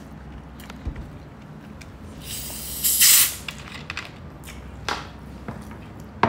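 Plastic Coca-Cola bottle being unscrewed, the carbonation hissing out for about a second, then a couple of short knocks as it is handled.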